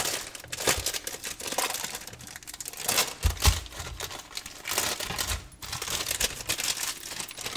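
Clear plastic wrapper crinkling and crackling as a pre-made rolled pie crust is pulled out and unwrapped, with a couple of dull knocks on the counter about three seconds in.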